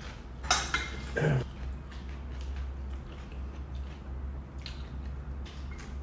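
Eating at a table: a metal spoon clicking against a plate, a cluster of sharper clicks about half a second to a second and a half in and a few lighter ones near the end, with chewing over a steady low hum.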